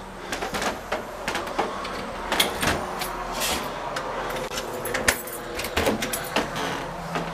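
Irregular knocks and clicks, a few of them sharper and louder about two and a half, five and six seconds in.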